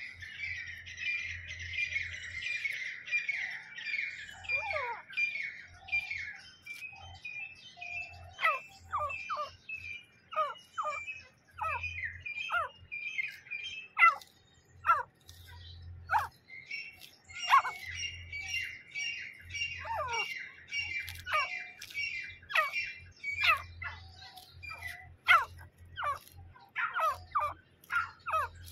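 Grey francolins calling: runs of high chirps mixed with many short, sharp notes that sweep down in pitch, coming several a second at the busiest moments.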